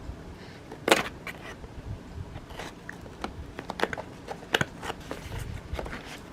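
Packaging of a bead embroidery kit crackling and clicking in the hands as it is opened, in irregular sharp bursts, the loudest about a second in.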